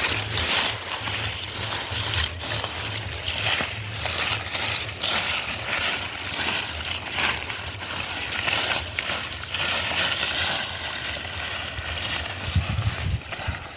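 Water splashing and sloshing in irregular bursts as hands work through muddy water and floating water hyacinth, over a steady low hum.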